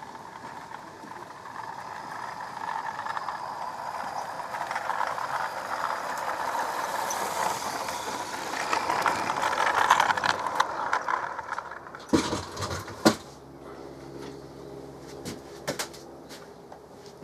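A 16mm-scale model locomotive running along garden track, its wheels and gears clattering and growing louder as it comes close about ten seconds in, then falling away. A few sharp knocks and clicks follow.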